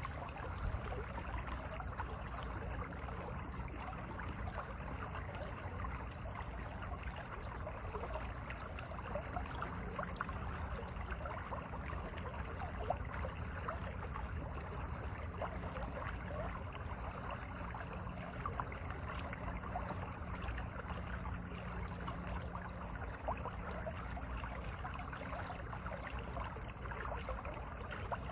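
Mountain valley stream flowing over rocks: a steady rush of water full of small splashes and gurgles.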